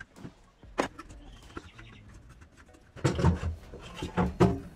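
Metal fuel tank of an old rusted generator knocking and clattering against the generator's tubular steel frame as it is worked loose and lifted off by hand: scattered clicks, then a cluster of louder knocks about three seconds in.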